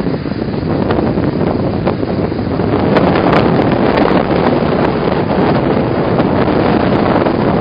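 Wind buffeting the microphone, loud and steady.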